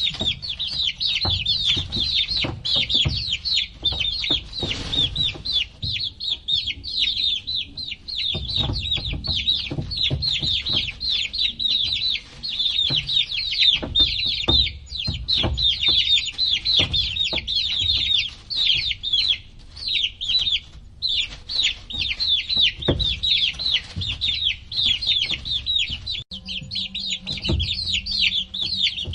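Many baby chicks peeping nonstop, their short high-pitched calls overlapping in a dense chorus, with scattered low knocks and thumps underneath.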